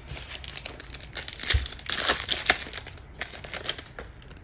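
A foil trading-card pack (Donruss Optic) being torn open, its wrapper crinkling and rustling in quick irregular crackles, busiest around the middle.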